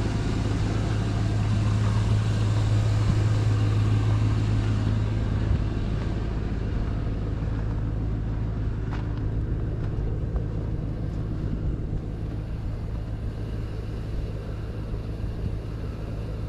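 Steady low hum of a vehicle engine running, slightly louder over the first few seconds and easing a little after, with a couple of faint ticks.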